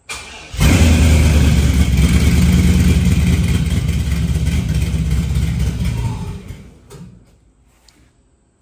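Cammed LS V8 in a 1983 Chevy El Camino starts, catching about half a second in, and runs loudly through cheap aftermarket mufflers for about six seconds. It then fades out and dies: the engine has run out of gas.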